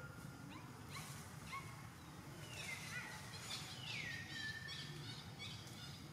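Forest birds calling: two drawn-out whistles that each slide down in pitch, about two and a half and four seconds in, among scattered short chirps, over a steady low background hum.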